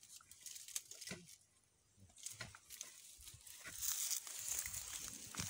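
Rustling and crackling of grass and tangled vines being pushed through and trampled, with scattered small snaps of stems; the rustle grows louder near the end.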